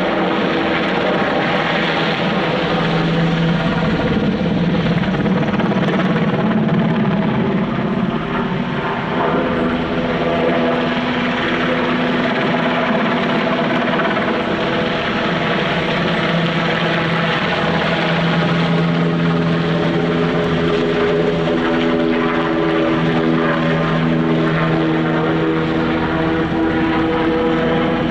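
NH90 military helicopter flying overhead: its twin turbine engines and main rotor make a steady, loud drone with several held tones that shift slightly in pitch as it passes and banks away.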